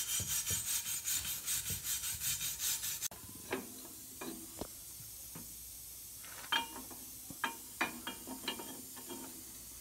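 Hand wire brush scraping rust off a steel U-bolt in quick, even strokes, about four a second. About three seconds in, this cuts off abruptly and gives way to a few sharp, ringing metal clinks as U-bolt hardware is fitted around a truck's leaf spring and rear axle tube.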